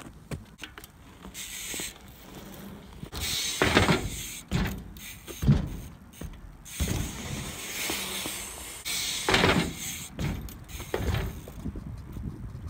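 BMX bike rolling on a concrete skatepark ramp: swells of tyre rumble and scraping, broken by several sharp knocks of the bike hitting the ramp.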